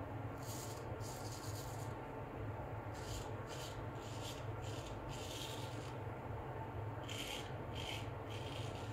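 Filarmonica Tridur 15/16 full-hollow straight razor cutting through lather and stubble on the neck in a dozen or so short strokes, each a brief scratchy rasp, some in quick pairs. This is the full hollow ground blade's crisp cutting sound, called a good old full hollow sound.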